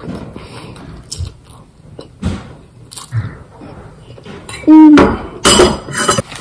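Eating sounds: soft chewing of pasta with a few light clinks of a fork against a small steel bowl. About five seconds in comes a short, loud, pitched vocal sound, followed by loud rustling and handling noise.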